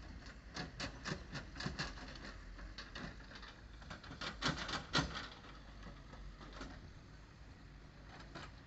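A rapid, irregular series of sharp clicks and knocks, clustered about half a second to two seconds in and densest and loudest around four to five seconds in.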